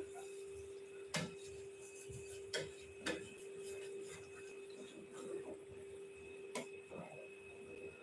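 Steel spatula stirring and knocking against a stainless-steel bowl of butter melting down into ghee, with a few sharp clicks about a second apart or more. A faint steady hum runs underneath.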